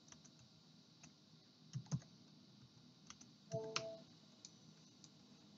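A few quiet computer clicks and keystrokes, scattered and irregular, over faint room tone, with a brief faint hum about three and a half seconds in.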